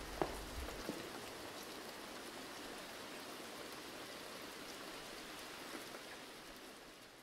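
Steady rain ambience: an even hiss with faint pattering and a soft tap or two in the first second, fading out near the end.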